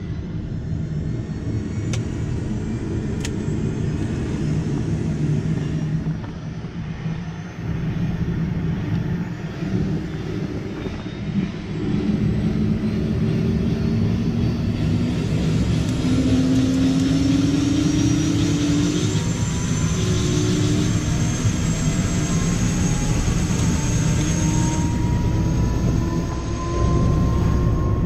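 Helicopter's turbine engine and rotor running, heard from inside the cabin: a steady low rumble with a whine that slowly rises in pitch from about halfway through.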